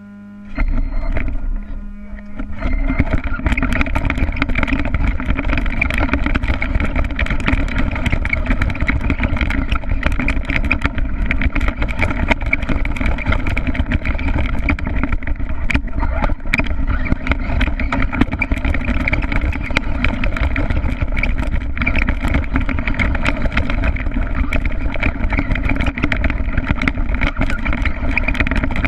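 Small engine of a Redcat Racing RC stadium truck running, heard from on board. After a short start it settles, about two and a half seconds in, into a steady drone that barely changes pitch. Many small clicks and knocks from the truck bouncing over the ground sound over it.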